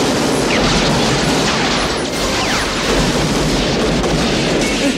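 Heavy gunfire mixed with booms and crashing, dense and continuous, with a few short falling whines through it.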